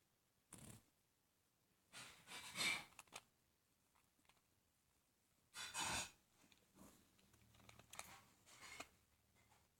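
Pet guinea pig eating: faint chewing clicks and rustles, with two louder noisy bursts about a second long, around two and six seconds in.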